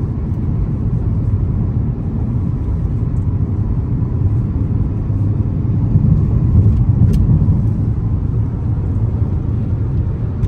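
Steady low rumble of road and engine noise heard inside a car's cabin while driving on a freeway.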